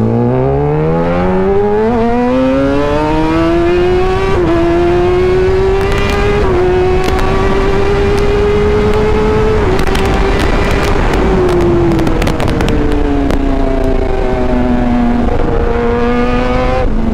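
Kawasaki Ninja ZX-10R's inline-four engine, with an SC Project exhaust, accelerating hard from a stop. The pitch climbs steeply for about four seconds with quick gear changes, holds high, then drops as the throttle rolls off and settles lower near the end. Wind rushes on the helmet microphone underneath.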